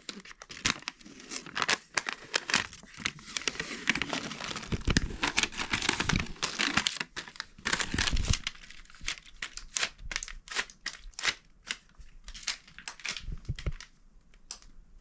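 Packaging crinkling and tearing as it is pulled open and handled, a dense run of rustling for the first eight seconds or so, then sparser.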